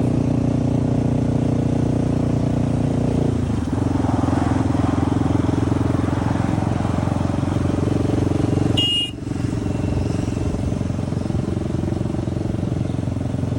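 Motorcycle engine running steadily, its note shifting a little about three and a half seconds in, with a short break and a brief high chirp about nine seconds in.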